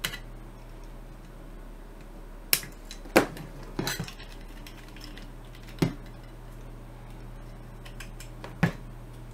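Small flush wire cutters snipping the wires of a panel indicator lamp, with metal parts of the panel clicking as they are handled: about five short, sharp metallic clicks spread unevenly, two close together a little over two seconds in.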